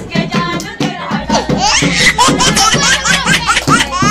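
A young child laughing hard in quick, high-pitched peals, starting about a second in, with other voices around.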